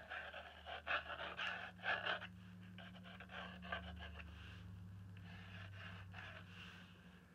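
Panting breaths in short, irregular bursts, strongest in the first half, over a low steady hum.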